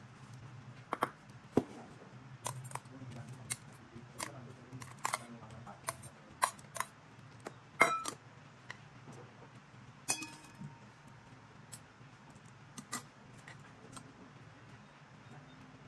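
Irregular clinks and taps of dishes and serving ware being set down on a table laid with banana leaves, about fifteen short sharp knocks scattered through, the loudest near the middle.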